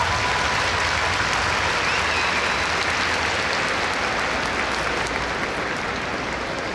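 Large audience applauding after a dance performance, the clapping slowly fading.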